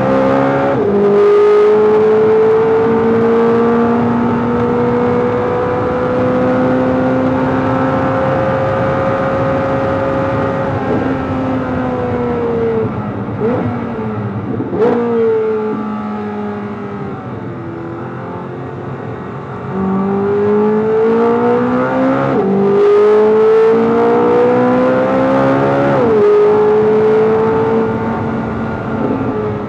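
C8 Corvette Z06's 5.5-litre flat-plane-crank V8 under hard track driving. It upshifts about a second in and pulls at high revs, then slows for a corner around halfway with two quick throttle blips on the downshifts. After that it accelerates hard again, with two upshifts near the end.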